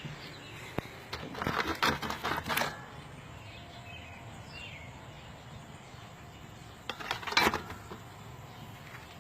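Two short bursts of metallic clanking and rattling, one about a second in and another near seven seconds, over a faint steady outdoor background with insects.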